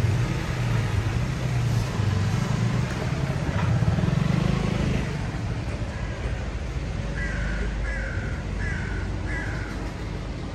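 Low engine rumble from road traffic that drops away about halfway through, then a crow caws four times in quick succession, each caw falling in pitch.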